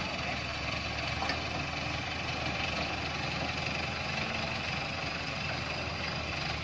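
Turbo diesel engine of a log-laden Dongfeng Trường Giang light truck running steadily, without revving.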